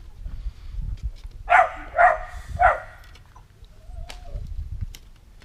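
A dog barks three times in quick succession, about half a second apart, then gives a faint short call a little later.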